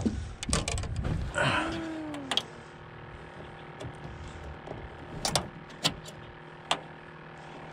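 A fish stringer being handled at the side of a boat: a cluster of knocks and scraping with a short squeaky glide in the first two seconds, then three sharp clicks about half a second to a second apart as the stringer's metal needle is worked. A steady low hum runs underneath.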